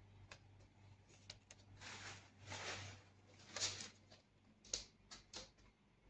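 Faint phone handling noise: soft rustling scrapes about two seconds in, then a few sharp clicks and taps over the next two seconds as the phone is moved.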